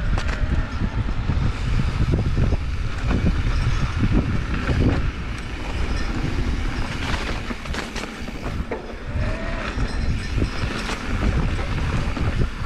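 Wind buffeting the microphone of a camera on a mountain bike riding down a dirt trail, over the sound of tyres rolling on dirt and the bike clattering with frequent clicks and knocks over bumps and rocks.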